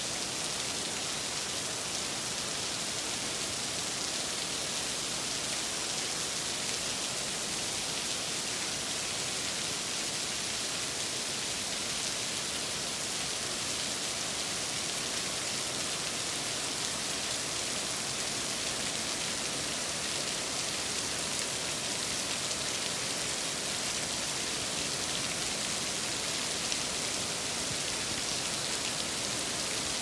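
Heavy rain falling steadily on corrugated metal roofs and wet ground, an even hiss that does not let up.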